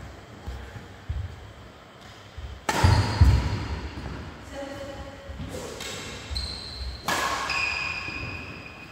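Badminton rally on a wooden indoor court: two sharp racket strikes on the shuttlecock, about three seconds in and again about seven seconds in, with footfalls thudding on the floor and the hits echoing in the hall.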